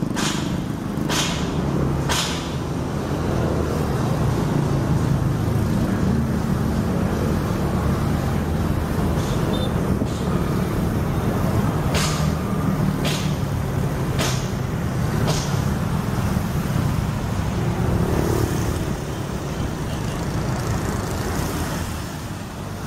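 Steady rumble of road traffic crossing the bridge, broken by a few sharp clacks, four of them about a second apart midway. It fades somewhat near the end.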